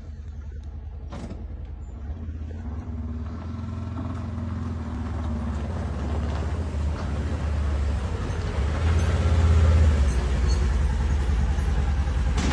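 Side-by-side UTV engine running as the vehicle drives up and pulls in, growing louder as it approaches and loudest about three quarters of the way through.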